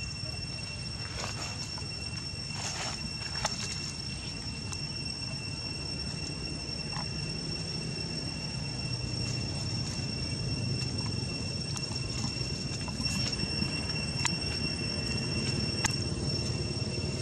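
Outdoor ambience: a steady, high-pitched insect drone with a fainter overtone above it, over a low rumble, with a few brief clicks and rustles of dry leaves.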